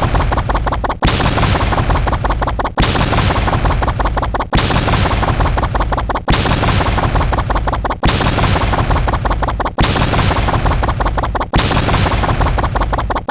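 A loud sound effect of dense, rapid cracks, like a burst of gunfire, cut off and restarted about every 1.75 seconds, seven times.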